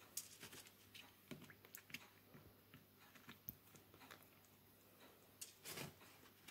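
Faint soft wet squishes and light clicks of fingers pressing and turning milk-soaked bread slices in a terracotta dish, with the loudest handling a little before the end.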